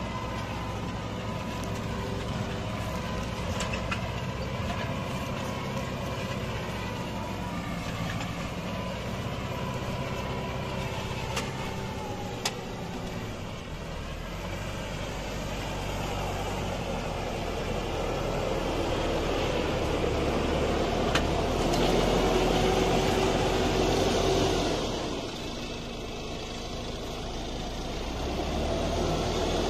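New Holland TD590 tractor's diesel engine working under load while ploughing uphill. The steady engine note swells louder past the middle, drops back about 25 seconds in, then rises again near the end.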